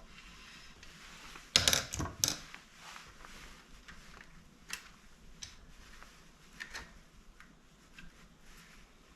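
Hand tools and screws working on a KitchenAid stand mixer's metal housing: a short clatter of metal clicks about one and a half seconds in, then a few scattered light clicks.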